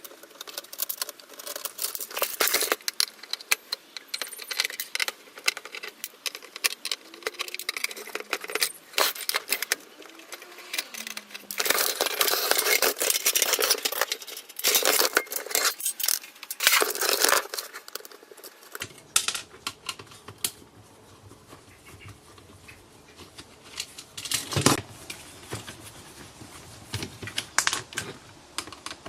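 Clicks, clinks and rattles of screws, small metal parts and tools being handled while a DVD home-theater receiver is taken apart. There are denser stretches of rattling and scraping about halfway through.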